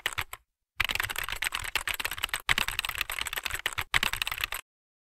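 Computer keyboard typing sound effect: rapid key clicks in several runs broken by short pauses, stopping about half a second before the end.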